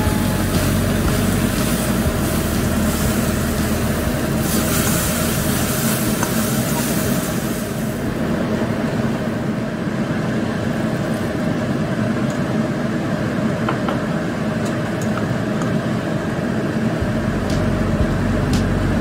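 Stir-frying in a wok: food sizzling, with a spatula stirring and scraping against the pan, over a steady low hum. The sizzle is strongest in the first half and eases after about eight seconds, leaving scattered scrapes and clicks.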